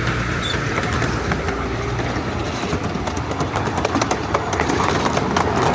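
7¼ inch gauge miniature steam train running along the track, a steady rolling noise with a rapid, irregular clicking of the wheels over the rails.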